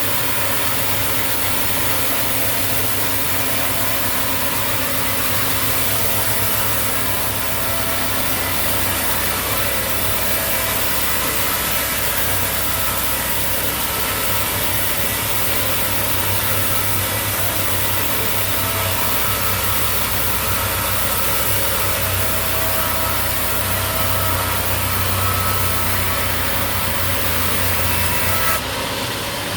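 Sawmill machinery running steadily: a continuous engine-driven hum with a broad hiss over it, changing briefly near the end.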